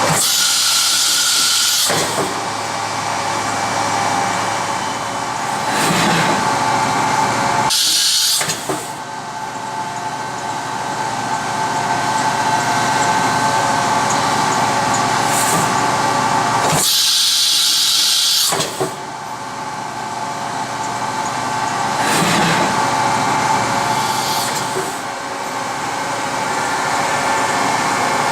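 Topper TMV-400 CNC drilling and tapping center running, a steady mechanical whine made of several steady tones. Three times, about every eight or nine seconds, a loud burst of air hiss lasts a second or two.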